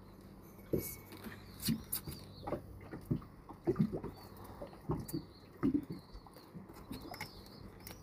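Handling noise from a freshly caught fish being unhooked by hand: short, irregular soft knocks and rustles, about one or two a second, with a few faint high chirps.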